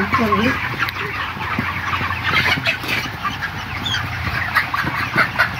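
A large flock of 35-day-old broiler chickens clucking and calling over one another, many short calls at once, over a steady low hum.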